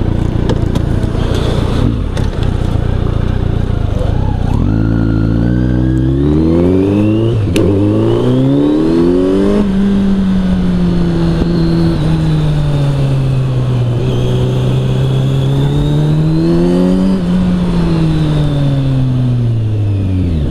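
Kawasaki Z900 inline-four with an Arrow exhaust running steadily at low revs, then accelerating hard through three gears, the pitch climbing and dropping back at each upshift. The revs then hold high, dip, climb again and fall away near the end as the bike slows.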